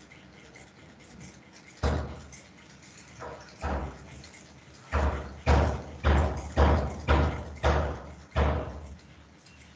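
A series of heavy knocks or thuds. Two or three come singly in the first four seconds, then a quicker run of about seven follows from about five seconds in, roughly two a second.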